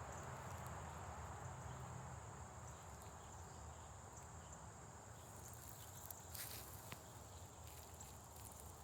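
A faint, steady high-pitched insect trill over a low background rumble, with a few soft clicks about six and seven seconds in.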